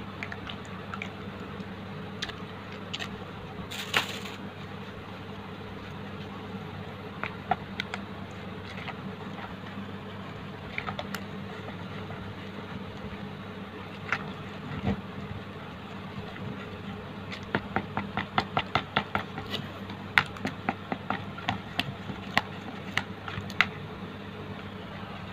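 Plastic spatula stirring a thick wet bait mixture in a plastic bowl, with scattered clicks and taps against the bowl that come quickly and densely in the second half. A steady low hum runs underneath.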